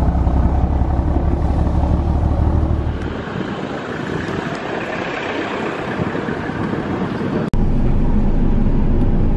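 Motor vehicle running with a steady low rumble. About three seconds in it gives way to a lighter, hissier noise, and near the end there is an abrupt cut back to a low rumble.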